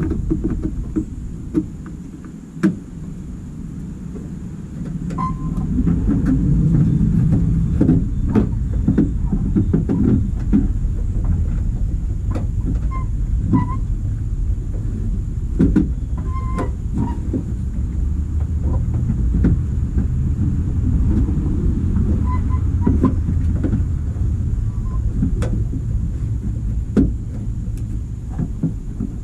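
Scattered plastic clicks and knocks from handling a tail-light housing and bulb during a brake-light bulb swap. Under them is a steady low rumble that builds about five seconds in.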